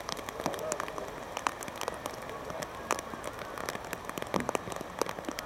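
Steady rain falling, with close raindrops striking a nearby surface as irregular sharp ticks, several a second, over an even hiss.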